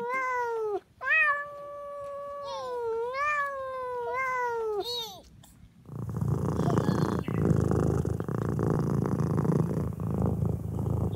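Drawn-out, wavering meow-like cat calls that slide down in pitch at their ends, for about five seconds. After a short gap, a steady low rumbling noise sets in about six seconds in.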